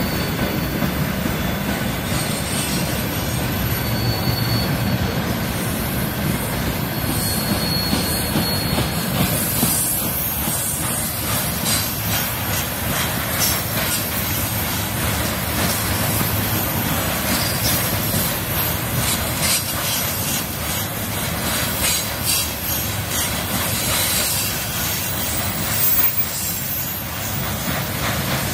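A freight train's wagons, tank cars and then covered grain hoppers, rolling past at close range: a steady rumble of steel wheels on the rails with rapid clicking and clacking as the wheels pass over the rail joints.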